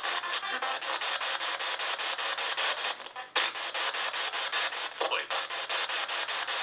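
SB-7 spirit box sweeping through radio stations: a steady hiss of static chopped several times a second, with brief snatches of radio sound. One snatch about five seconds in is taken by the investigators for a voice saying "boy".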